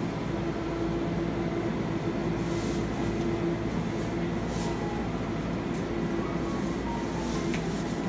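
Steady low hum and rumble of the store's open refrigerated display cases and ventilation, with a few faint rustles.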